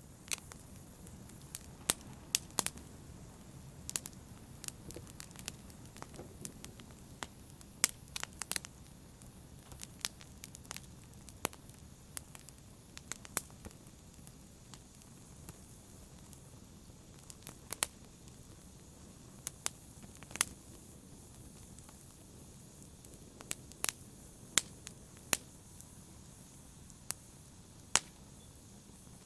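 Fire burning in a fireplace: a low, steady rush of flames with sharp crackles and pops at irregular intervals, a few of them loud.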